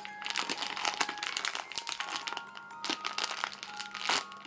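Clear plastic bag crinkling and crackling as it is handled, with a sharper crackle near the end, over soft background music.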